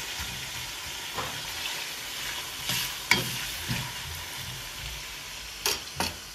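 Beef and onions sizzling in hot oil in an aluminium cauldron as they brown for plov, stirred with a metal slotted spoon that scrapes and knocks against the pot several times, most sharply about three seconds in and twice near the end.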